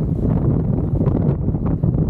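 Wind buffeting the camera microphone on a moving motorcycle, over a steady low rumble of engine and road.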